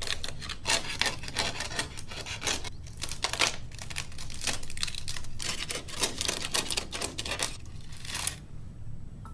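Papery outer envelope of a wasp nest being torn and peeled apart layer by layer: irregular dry crackling and tearing rustles in bursts, easing off near the end.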